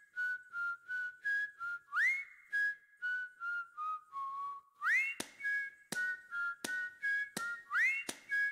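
Background music of a whistled tune. Each phrase opens with a loud upward-gliding whistle and then short notes that step down in pitch. From about halfway through, sharp clicks keep time.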